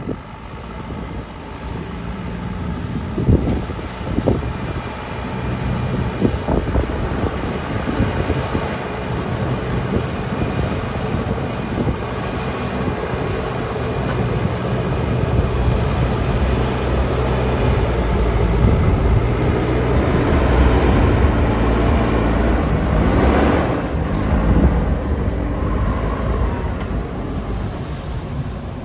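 A motor engine running with a steady low hum that grows louder over the first twenty seconds, with a couple of sharp knocks about three and four seconds in.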